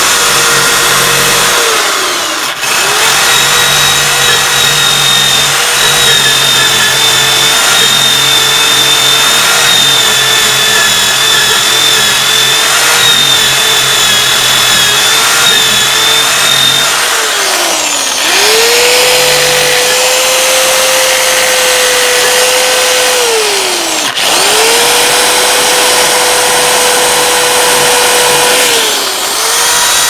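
Electric drill with a wheel attachment running at speed and grinding against an iron kettle: a steady motor whine over a rasping hiss of metal being scoured. The motor's pitch sags and climbs back four times, about two, seventeen, twenty-four and twenty-nine seconds in.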